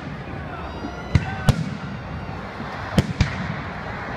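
Aerial firework shells bursting: four sharp bangs, a pair about a second in and another pair about three seconds in, over a steady background of crackle and rumble.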